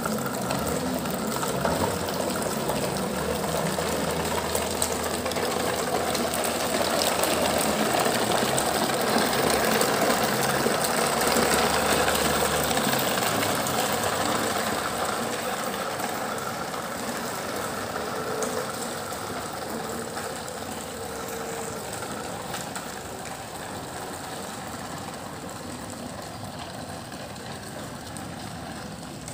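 Toy truck's motor running with a steady, rough whirr that grows louder up to the middle and fades through the second half.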